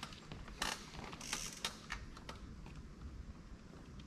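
Two mountain bikes rolling slowly over a dirt trail: scattered sharp clicks and ticks, with two brief crunching rustles about half a second and a second and a quarter in.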